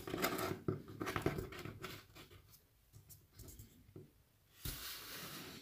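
Handling noises of a plastic action figure and its accessories: small clicks and rubbing for the first two seconds, then near quiet, with one soft knock near the end.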